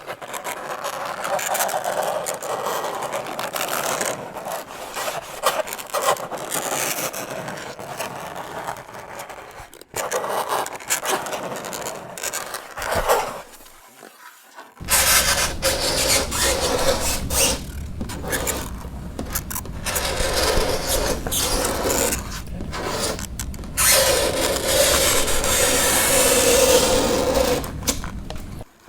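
Fingernails scraping and dragging across a chalkboard in repeated irregular strokes, with a short lull about halfway through before the scraping comes back louder.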